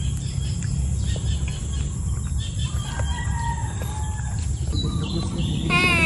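Roosters crowing, faint and distant at first, then one louder crow near the end, over a steady low rumble.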